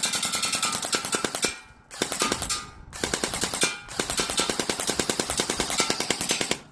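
Elite Force M4 CQB airsoft rifle firing full-auto: rapid, evenly spaced shots in four bursts with short pauses between them.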